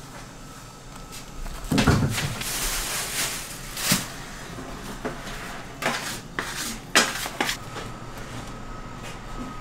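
Kitchen handling sounds of food preparation: a heavy knock about two seconds in, followed by a second or two of rustling, then scattered sharp clicks and clatters of utensils and containers.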